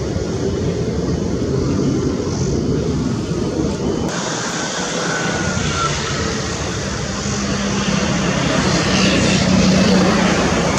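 Mirage 2000-5 fighter jet's single SNECMA M53 afterburning turbofan running loud during a display flight. The sound changes abruptly about four seconds in and swells louder near the end as the jet climbs.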